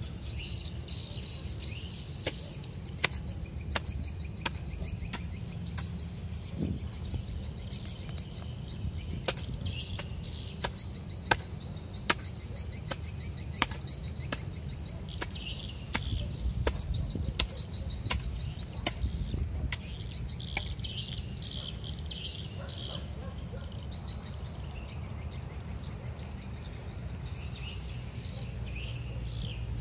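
A hand hoe chopping into dry, stony soil, a sharp knock with each stroke, coming irregularly about once a second and thinning out near the end. Insects trill steadily in the background, with a few bird chirps.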